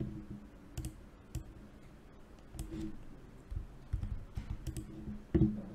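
Quiet, scattered clicks of a computer mouse and keyboard, about eight of them at irregular intervals.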